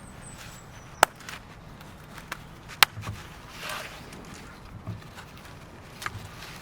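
Press stud snap fasteners being pressed together to join two pieces of canvas, snapping shut with sharp clicks: two loud ones about two seconds apart and a softer one near the end, with faint fabric handling between.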